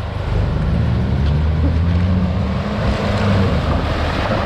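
Four-wheel-drive's engine running under load as it pushes through a river crossing, with water splashing around the vehicle. The engine note rises a little, then the splashing grows louder near the end as the vehicle comes closer.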